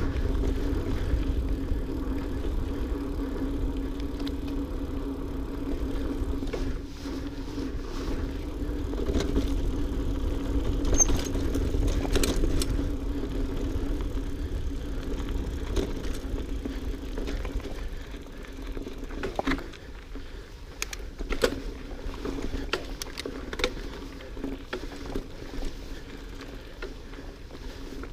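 GT Aggressor Pro mountain bike ridden along a dirt trail: tyres rolling on dirt under a steady low rumble, with sharp clicks and rattles from the bike over bumps. Louder in the first half, quieter with more scattered clicks in the second.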